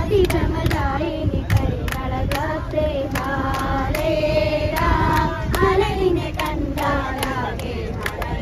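A group of people, children among them, singing together and clapping along, over the low rumble of a bus on the move.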